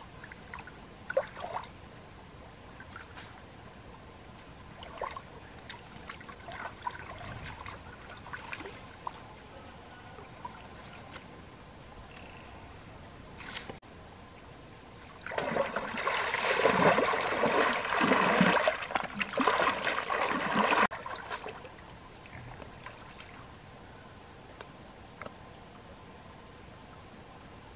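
Water trickling and splashing, with scattered small splashes and knocks over the first half and a louder stretch of sloshing water from about fifteen to twenty-one seconds in, which stops abruptly. A faint steady high hiss runs underneath.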